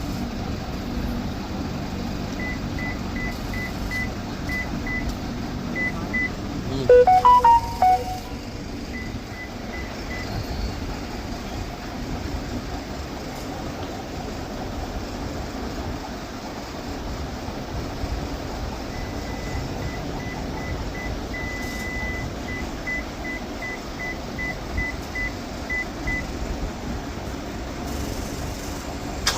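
Short high-pitched electronic beeps, about three a second, in two runs, over a steady background hum. About seven seconds in, a brief chime of a few notes at different pitches is the loudest sound.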